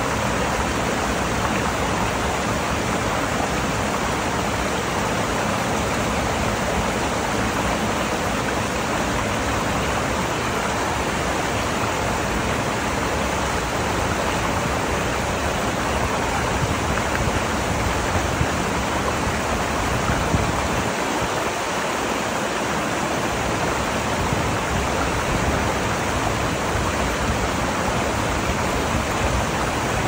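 Shallow mountain stream rushing over stones close by, with a small waterfall falling behind it: a steady, even rush of water.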